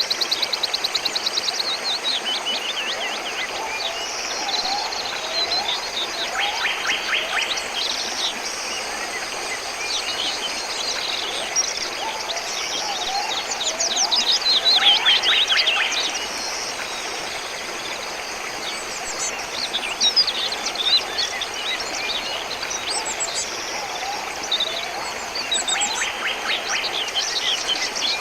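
Several birds chirping and singing, with rapid trills and quick runs of notes, over the steady rush of a stream.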